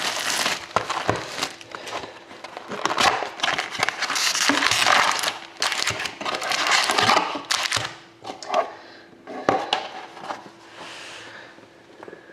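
Sealed hockey card box being opened and its foil card packs handled: cardboard and wrappers rustling and crinkling, with many sharp clicks and taps, thinning out over the last few seconds.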